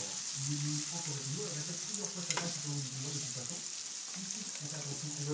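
Sausages and vegetables sizzling steadily on a plancha griddle, with a couple of light clicks about two seconds in.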